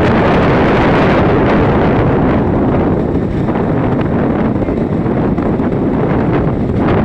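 Strong wind blowing hard across the microphone: a loud, low rushing noise that eases slightly partway through and then picks up again.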